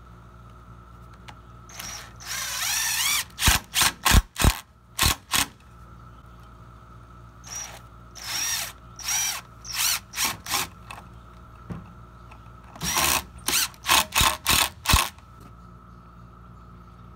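Cordless drill driving pocket-hole screws into a pine 2x4 frame joint, in three runs: each a short spin-up followed by a quick string of brief trigger bursts as the screw is snugged down.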